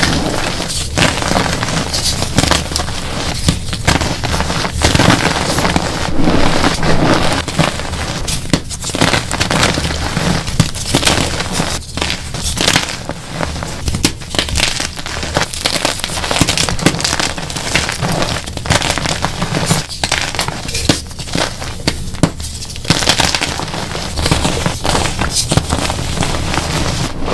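Dyed gym chalk blocks crushed and crumbled by hand: a steady run of dry crunching and crackling as the blocks break apart and the fragments and powder are squeezed between the fingers.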